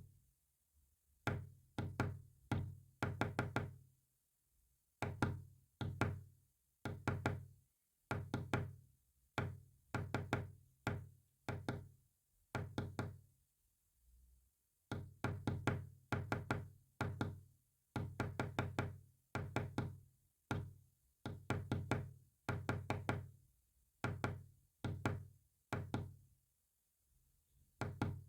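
Sharp knocks with a low thud, tapped out in uneven groups of several strokes separated by short pauses, sending a Morse-code message.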